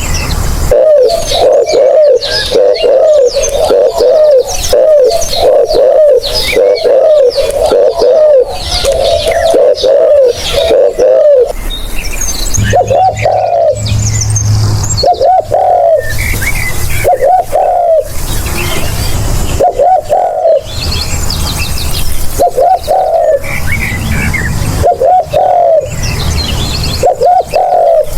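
Spotted dove cooing. For about the first eleven seconds it gives a quick unbroken run of coos, and after that short coo phrases about every two seconds. Smaller birds chirp faintly higher up.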